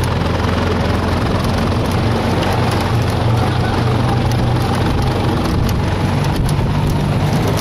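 Golf cart driving at speed over a dirt track: a steady low drone of its motor under an even rush of noise.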